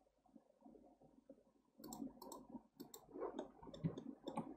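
Faint clicking of a computer mouse and keyboard, several clicks a second, starting a couple of seconds in after a near-silent stretch.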